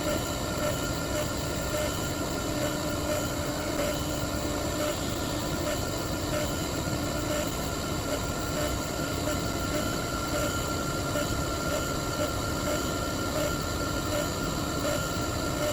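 CNC router running steadily as it cuts a guitar pickguard: a constant whining machine noise with a few held tones, no pauses or changes.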